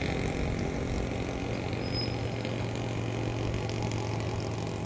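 Steady engine hum and road noise of a vehicle on the move, heard from inside it.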